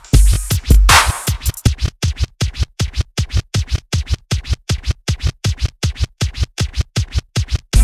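Electronic drum-machine music: a kick-and-snare beat gives way to a fast stutter of short repeated hits, about seven a second, with a scratch-like DJ effect, until the full beat with bass returns at the very end.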